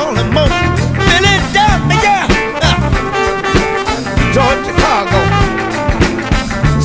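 Background music with a steady beat and a melody gliding up and down.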